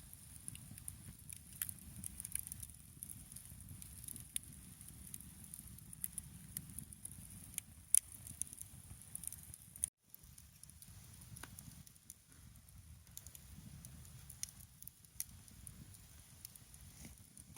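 Wood fire crackling, with irregular sharp pops over a low rumble and one louder pop about eight seconds in.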